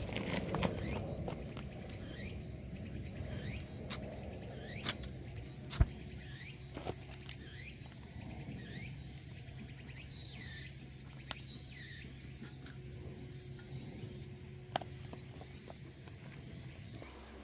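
Campfire crackling, with scattered sharp pops (the loudest about six seconds in) over a low steady rush. Short high squeaks falling in pitch recur throughout, roughly one or two a second.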